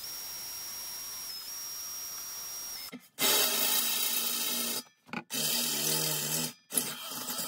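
Bosch cordless drill boring a 1/8-inch pilot hole into the steel wall of an old air compressor tank. A steady hiss with a thin high whine runs for about three seconds, then the drill runs in three bursts of about a second and a half each, with short stops between them.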